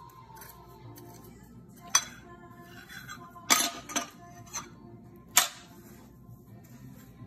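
A metal fork clinking sharply against a dish about five times as it turns a cutlet in breadcrumbs, with faint background music.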